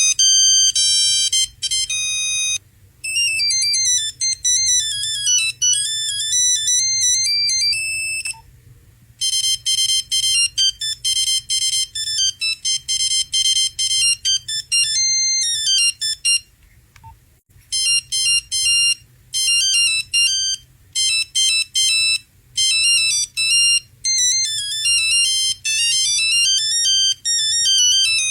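Several classic Nokia mobile-phone ringtones played one after another: simple electronic melodies in plain beeping notes, with short pauses between tunes.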